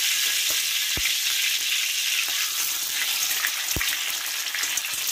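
Hot oil sizzling steadily in a wok where shrimp, garlic and spring onion are frying and an egg is cracked in. Two sharp knocks come about a second in and near four seconds in.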